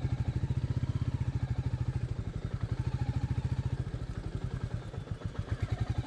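Royal Enfield Meteor 350's single-cylinder engine running at low revs with a steady, rapid thumping beat as the bike moves slowly along a slippery mud trail, easing off briefly about five seconds in.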